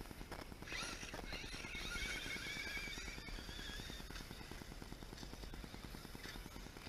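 Electric RC truck's motor whining, its pitch wavering up and down with the throttle, over a steady low rumble.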